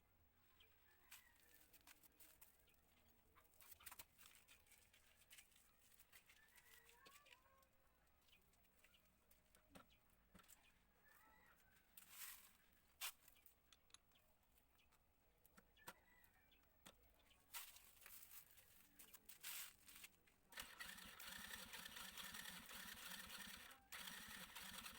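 Mostly near silence with faint bird chirps and scattered light clicks; a steady hiss starts about twenty seconds in and cuts off near the end.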